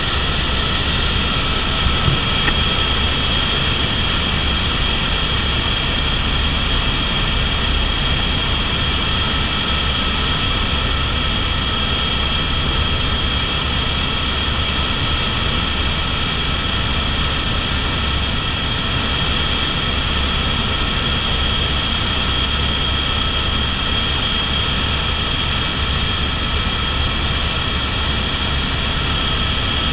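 Airbus AS350 (H125) helicopter in steady cruise flight, heard from inside the cabin: the single turbine engine's constant high whine over the low drone of the main rotor and airframe.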